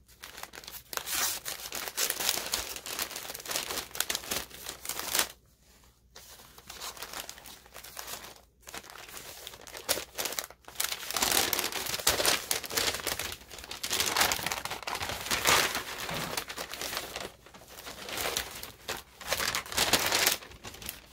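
Thin white paper wrapping crinkling and rustling as it is handled and unfolded, in irregular bursts with a few short pauses.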